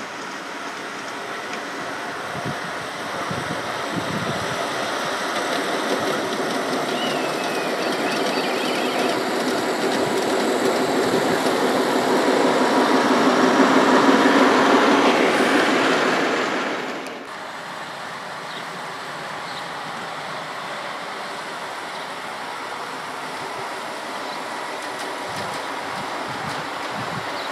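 3½-inch gauge miniature railway train running on the track, growing steadily louder over the first half, then dropping off suddenly about two-thirds of the way through.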